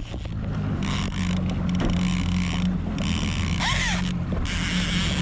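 Large overhead fishing reel ratcheting in about four short spurts, each under a second, while a hooked wahoo is played. A steady low hum from the jet ski's idling engine runs underneath.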